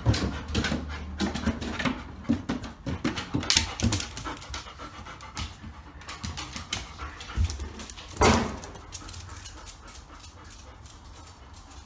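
Flat-coated retriever panting, with quick clicks of claws and paws on the floor, and one louder burst of noise about eight seconds in.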